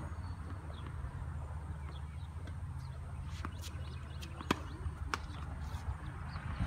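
Tennis ball being struck by rackets and bouncing on a hard court during a rally: a handful of sharp pops in the second half, the loudest about four and a half seconds in, over a steady low rumble.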